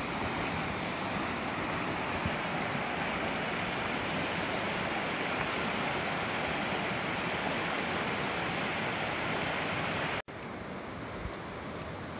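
Small river rushing steadily over rocks. About ten seconds in it cuts off abruptly and comes back as a slightly quieter rush.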